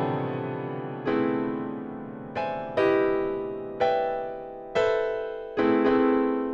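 Slow piano chords, each struck and left to ring and fade, a new chord roughly every second.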